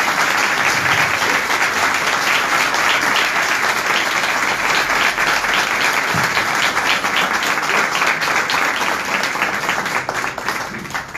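A roomful of people applauding: dense, sustained hand clapping that dies away near the end.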